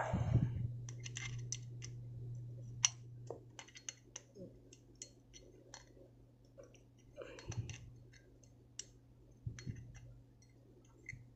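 A metal lighter insert being worked into its Zippo-style steel case: scattered small metallic clicks, taps and scrapes, with one sharp click about three seconds in. The fit is tight, so the insert goes in with effort.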